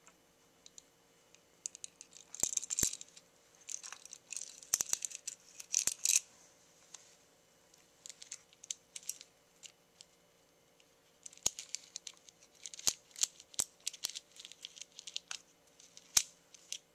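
Metal ball chain clicking and rattling against a plastic Rollease R16 roller-shade clutch as the chain is fed in and the clutch dial is turned by hand, the balls seating in the sprocket groove. Light clicks come in several spells with short pauses between them.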